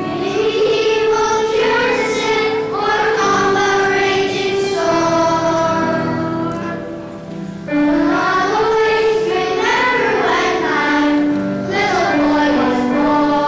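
Children's choir singing a song over instrumental accompaniment, with a short break between phrases about seven seconds in.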